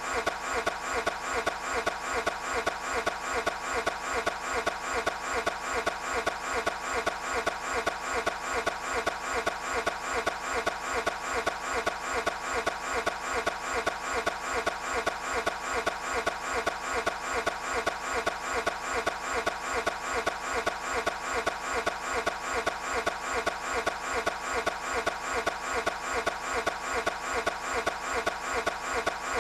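Toyota 86's engine being cranked over by its starter without catching: an unbroken, even churning of about two to three pulses a second.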